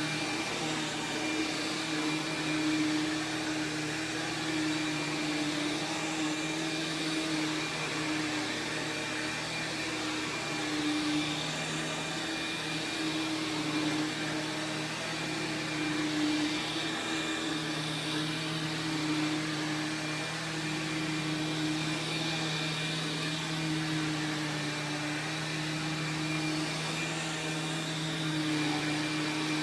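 Sharp Twin Energy EC-12TWT4 upright vacuum running steadily on its 12-amp two-stage Ametek/Lamb motor: a steady low hum and a thin high whine over a rush of air.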